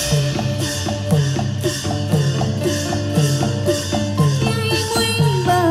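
Burmese traditional dance music: drum strokes that drop in pitch beat about twice a second over fast high ticks of cymbal or clapper. A wavering high melody line comes in about four seconds in.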